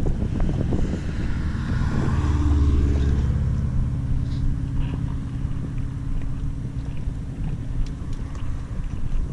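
A motor vehicle's engine droning low and steady, loudest about three seconds in and then slowly fading.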